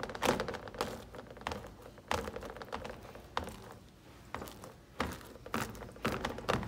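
Buttered hands pressing and patting marshmallow-coated chocolate rice cereal into a plastic pan. The puffed cereal crackles and crunches under the palms, with irregular pats, one or two a second.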